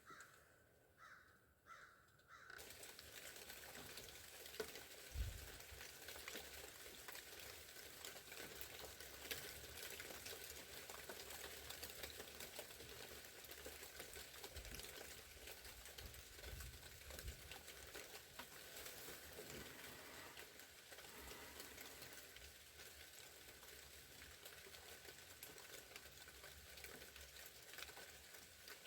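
Faint, steady patter of rain and melting ice dripping in the woods, a fine crackle of many small drops that comes in a couple of seconds in.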